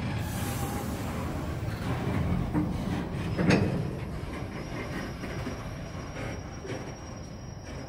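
Freight train's container wagons rolling past on the rails in a steady rumble, with one sharp clank about three and a half seconds in; the noise eases off after it.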